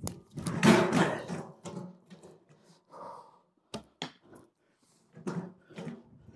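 Knocks, thuds and rustling from a person swinging around a dance pole with a recurve bow in hand. The loudest is a long rush of noise about half a second in, and two sharp knocks come close together about four seconds in.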